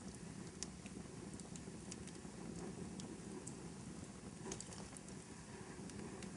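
Wood fire crackling in a fireplace: a soft steady low rumble of flames with scattered sharp pops and snaps at irregular intervals.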